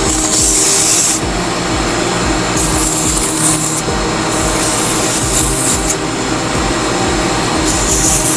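180-grit sandpaper held against a wooden chess piece turning on a running wood lathe, hissing in about four strokes, over the steady hum of the lathe.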